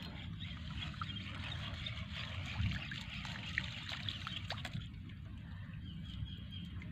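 Water lapping and trickling against a small boat's hull, over a low steady rumble, with a few faint clicks.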